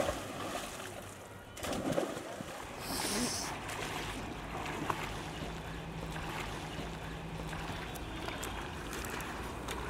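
Boys jumping off a bridge railing into a river, with splashes in the first few seconds, then the splashing of swimming strokes over the steady noise of the water.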